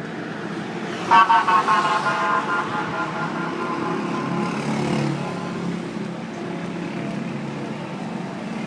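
Busy city street traffic with engines running. About a second in, a vehicle horn honks several quick times, then fades away.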